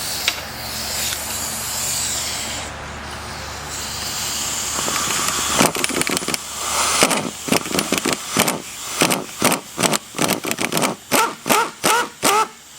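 A steady hiss, then from about halfway a quick, uneven run of short loud bursts from a tool working the nut on a strut's top mount. The nut is still spinning loose because the compressed spring is not yet under tension.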